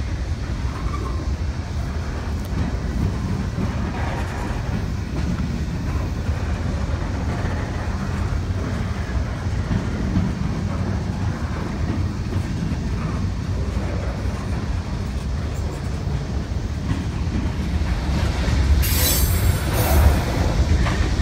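Freight cars rolling past on the rails: a steady low rumble of wheels with clicking over the rail joints. It grows louder near the end, with a brief high-pitched noise about nineteen seconds in.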